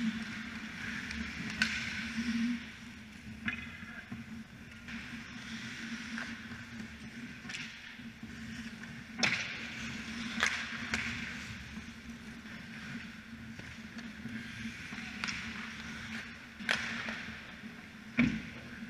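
Ice hockey skates scraping and carving on the ice, with several sharp clacks of sticks and puck over a steady low hum.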